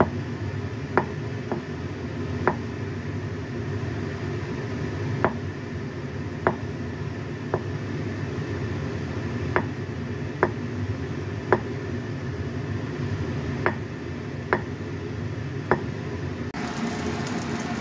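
A Chinese cleaver slices fish balls on a wooden chopping board: about a dozen sharp, unevenly spaced knocks of the blade striking the board, over a steady low hum. Near the end a steady sizzling hiss of oil frying in a wok comes in.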